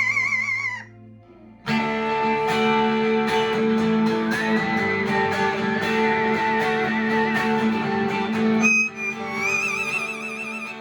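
Acoustic guitar strumming chords, pausing briefly about a second in and starting again, while a parrot sings along in high, warbling notes with a wavering vibrato.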